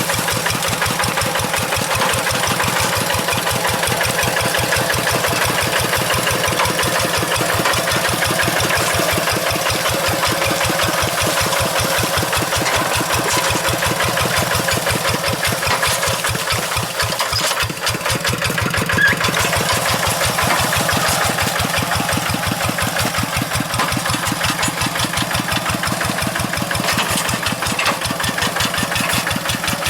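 Kubota RD85Di2S single-cylinder diesel engine of a Quick G1000 two-wheel hand tractor running steadily, with a fast, even chugging beat.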